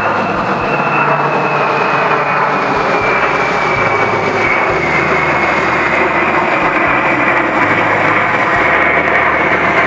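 Ilyushin Il-76 four-engine jet transport passing low overhead with its landing gear down: loud, steady jet engine noise with a high whine that slowly falls in pitch.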